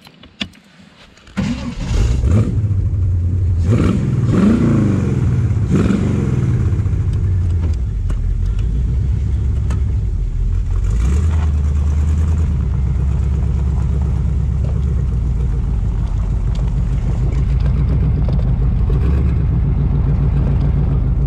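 1923 Ford T-bucket hot rod's engine starting about a second in, revved up and down a few times, then running steadily with a low, even beat as the car gets under way.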